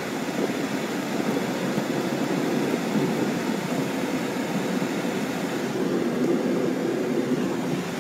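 Steady road and tyre noise with engine hum from a moving car, heard from inside its cabin.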